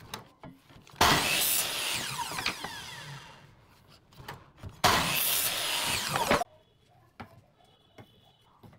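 Miter saw cutting a pallet-wood board, twice. The first run starts about a second in and the blade winds down with a falling whine. The second, shorter run cuts off suddenly.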